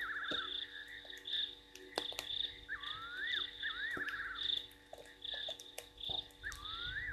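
Frogs calling at night by a waterhole: short high calls repeating, and about every four seconds a louder pair of calls that sweep upward in pitch and break into a quick trill.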